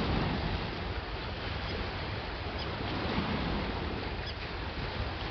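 Lake Ontario waves washing steadily on the rocky shore, with wind rumbling on the microphone. A few faint high chirps come through now and then.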